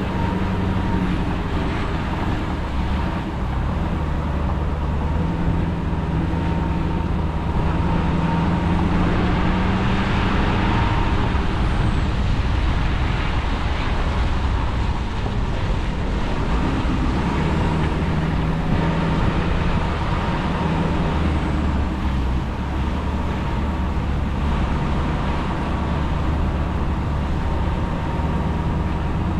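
Truck engine running while driving, a steady low drone whose pitch shifts up and down.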